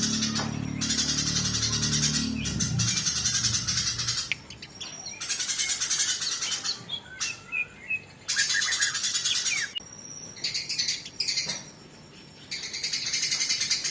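Eurasian tree sparrows chattering in fast, harsh bursts of about a second each, the calls of sparrows fighting, with short gaps between bursts. A low background music bed fades out about two to three seconds in.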